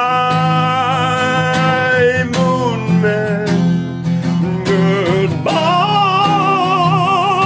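A man singing long held notes with vibrato over a strummed acoustic guitar. One note is held for the first two seconds, and another long, wavering note begins about five and a half seconds in.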